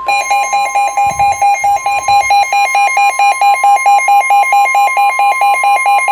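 Weather radio alert: the steady 1050 Hz NOAA Weather Radio warning alarm tone, with rapid pulsing alert beeps over it, announcing an incoming warning broadcast, here a flood warning.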